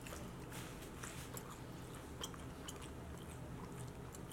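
A person chewing a fried onion ring with the mouth closed: faint, soft crunching with scattered small crackles, thickest in the first second or so.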